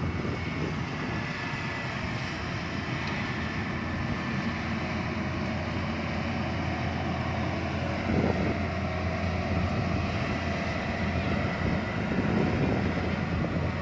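Yanmar AW82V rice combine harvester running steadily while it cuts rice, its diesel engine and threshing gear giving a continuous drone that gets a little louder about eight seconds in.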